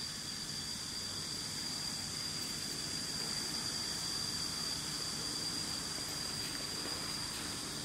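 Steady outdoor background: an even hiss with one constant high-pitched whine running through it and a low rumble beneath.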